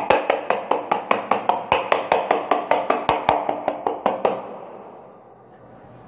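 Vacuum cleaner's cylindrical HEPA filter knocked rapidly against a window sill, about six sharp knocks a second, to shake out the fine dust trapped in it. The knocking stops about four seconds in.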